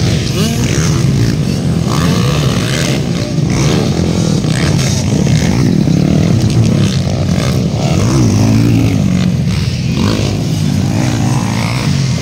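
Motocross dirt bikes' engines racing on a dirt track. The engine note keeps rising and falling as the riders rev through the course.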